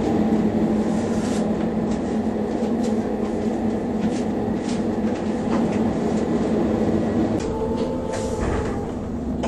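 Finnish Dm7 diesel railcar heard from inside its cab while running: a steady diesel engine note with repeated wheel clicks over rail joints and switches. The sound eases slightly near the end.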